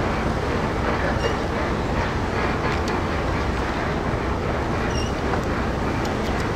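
Steady low rumble of dockside machinery, an even noise with no single event standing out, and a couple of faint short squeaks.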